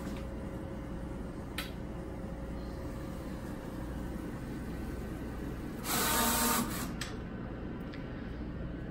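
Roland FJ-50 wide-format printer running its media setup after the setup button is pressed, its carriage moving across to measure the width of the loaded material. A steady low machine hum, a sharp click about one and a half seconds in, and a louder motor whir about six seconds in that lasts under a second.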